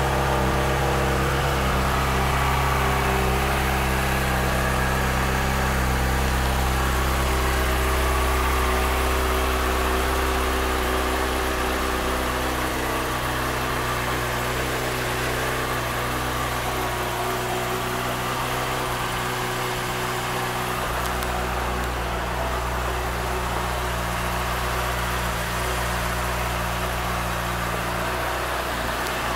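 2014 Honda CBR600RR's inline four-cylinder engine idling steadily, a little quieter from about ten seconds in.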